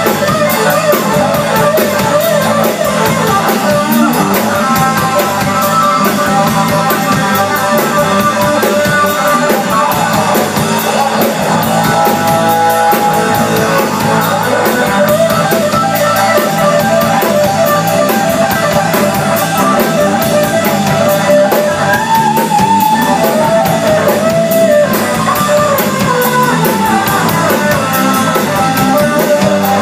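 Live rock band: an amplified Stratocaster-style electric guitar playing lead lines over drums with a steady cymbal beat.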